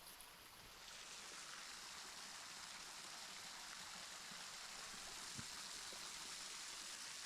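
Spring water flowing out of the ground and running down over rocks: a faint, steady hiss of running water that grows a little louder about a second in. A faint knock about five seconds in.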